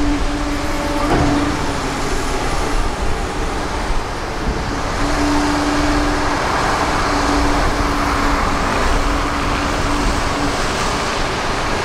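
Liebherr 946 excavator working at house demolition: its engine runs under load with a steady hum that breaks off and returns several times, over a dense rumble of machine and demolition noise.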